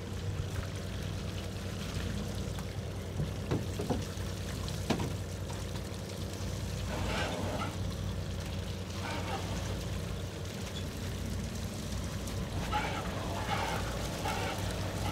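Lobster boat idling with its engine a steady low hum, under an even pour of running water. A few light knocks come a few seconds in, and faint voices are heard in the middle and near the end.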